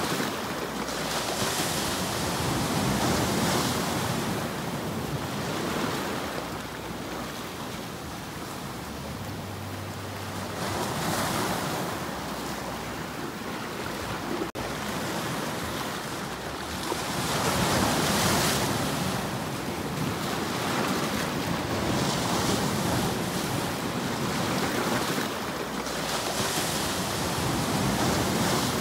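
Sea waves breaking and washing over shoreline rocks, the surf swelling and easing every few seconds. The sound drops out for an instant about halfway through.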